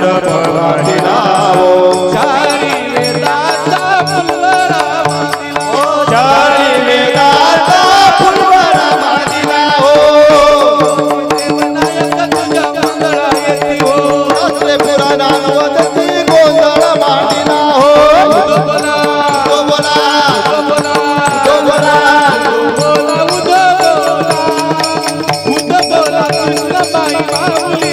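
Devotional kirtan singing: a man's voice singing a gliding, ornamented melody into a microphone, kept in time by small brass hand cymbals (taal) and accompaniment.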